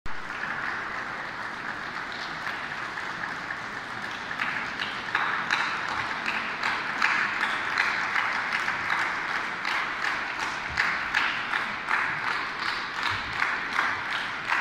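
Audience applause in a large church, a scatter of hand claps that grows fuller and louder about five seconds in.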